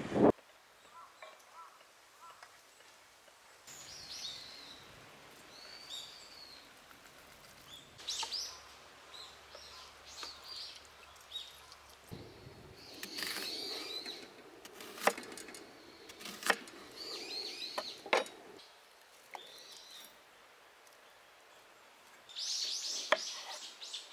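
Wild birds calling and chirping in short, high, repeated phrases, with a couple of sharp clicks partway through.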